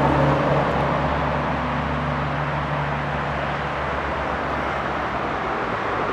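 Motor vehicle engine hum that fades away over the first two or three seconds, over a steady wash of road-traffic noise.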